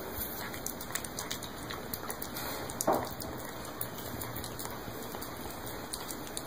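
A long-haired cat eating from a plate: wet chewing and licking, heard as many small crackly clicks and smacks. One brief louder sound comes about three seconds in.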